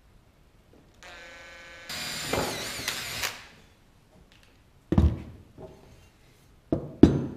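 Cordless drill spinning up, then boring a 3 mm hole into the end of a copper pipe: the whine gets louder and its pitch wavers under load for about a second and a half, then stops. A few sharp knocks follow, the loudest about a second in from the last, as the copper tubes are handled on the wooden bench.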